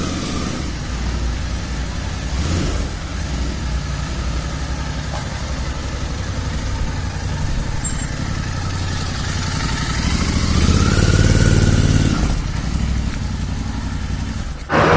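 Royal Enfield Continental GT 650 parallel-twin engine idling through an aftermarket Red Rooster Performance Stellar exhaust, with a brief rev about ten seconds in before it settles back to idle.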